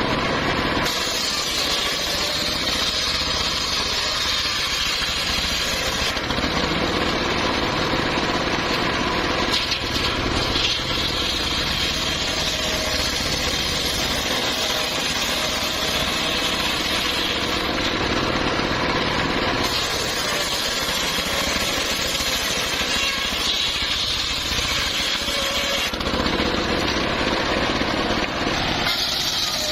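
Engine-driven homemade travelling circular sawmill running continuously while sawing small timber. Its tone shifts every several seconds, with brighter, higher-pitched stretches alternating with duller ones.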